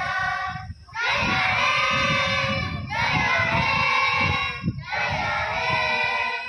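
A group of voices singing together in drawn-out phrases of about two seconds each, three phrases with brief breaks between them.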